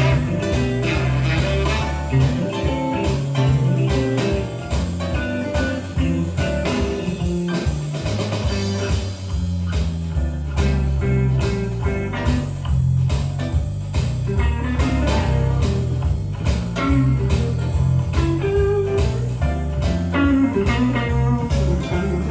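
Blues music with electric guitar and bass, played back from a cassette tape on a Sony TC-K555ESA cassette deck.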